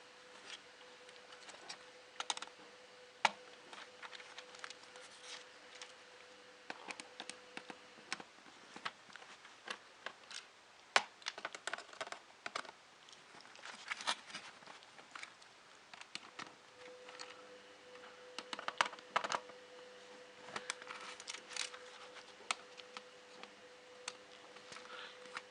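Irregular light clicks and taps of plastic keyboard parts from a Sinclair ZX Spectrum+ being handled and set down during disassembly, over a faint steady hum that drops out for a while in the middle.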